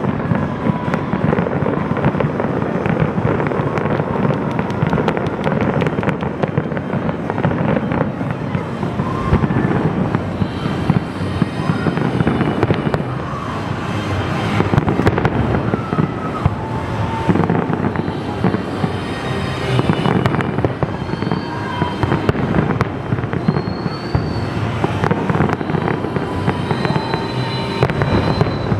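Large aerial fireworks display going off without pause: dense, overlapping bangs and crackle, with short high whistles now and then.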